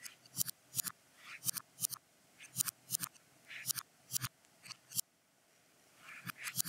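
Sharp clicks, often in quick pairs or small clusters, about every half second, with short scraping sounds between them and a brief lull about five seconds in.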